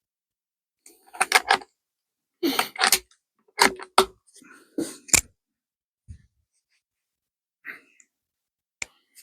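A run of short, sharp mechanical clicks and clacks in quick clusters, then a few faint ticks: handling of a CZ 457 bolt-action .22 rimfire rifle.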